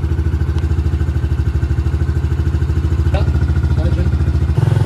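Small pit bike engine idling with a steady, fast pulsing putter, getting louder shortly before the end.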